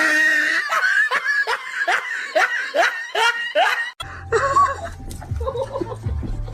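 Laughter in a rapid run of short pitched bursts, about three a second, that stops abruptly about four seconds in; after that a quieter mix with a steady low hum.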